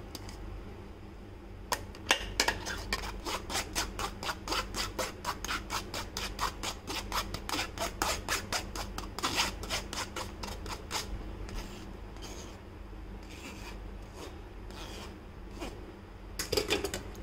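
Steel spoon scraping against a wire-mesh strainer as mango pulp is pressed through it, a quick run of rasping strokes about three a second. The strokes thin out about two-thirds of the way through, and there is a short burst of them near the end.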